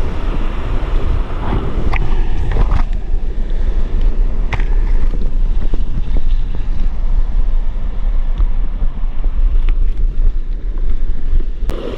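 Steady rushing of a waterfall stream, mixed with wind buffeting the microphone, with a few short knocks about two, three and four and a half seconds in.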